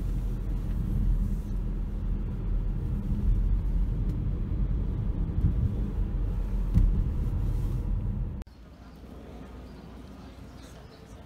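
Steady low rumble that cuts off suddenly about eight seconds in, leaving a much quieter background.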